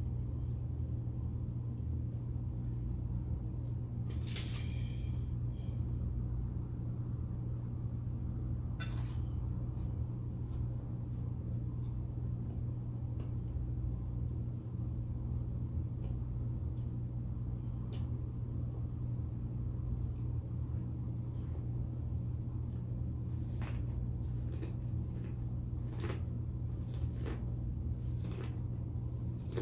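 Eating sounds at a meal: scattered soft clicks and clinks of cutlery and chewing, more of them near the end, over a steady low hum.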